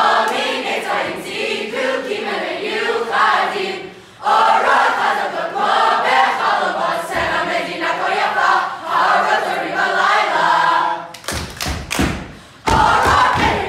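A group of teenagers singing and chanting a camp cheer in unison, loud and full-voiced. Near the end the singing breaks off for a quick run of about five rhythmic thuds, then starts again.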